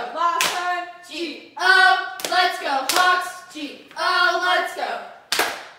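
Girls' voices chanting a cheer together in drawn-out syllables, with several sharp hand claps across it.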